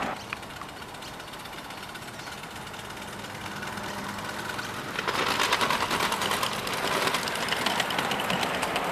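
A ride-on miniature live-steam locomotive running on a ground-level track, with a fast, even chuffing exhaust and light metallic clatter from its wheels. It grows louder as it approaches. About five seconds in it becomes much louder and sharper as the engine and its riding truck pass close by.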